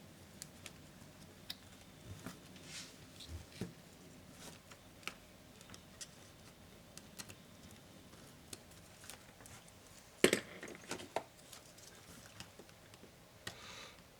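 Small scattered clicks and taps of tools and small parts being handled while an Acer Swift SF315 laptop is taken apart, with a louder cluster of sharp clicks about ten seconds in and a short rustle near the end.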